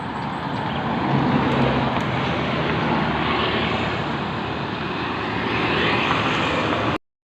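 A large bus passing close by on the road: steady engine and tyre noise, slightly louder about a second in, stopping abruptly near the end.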